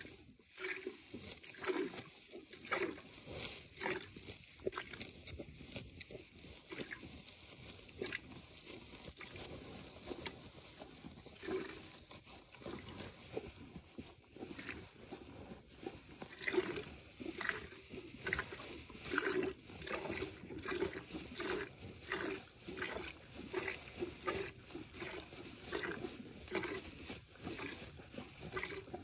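Hand milking a Jersey cow: rhythmic squirts of milk hitting a metal pail, about one to two strokes a second.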